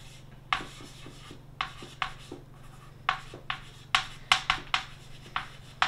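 Chalk writing on a chalkboard: a series of short, irregularly spaced strokes as a line of words is written out, over a low steady hum.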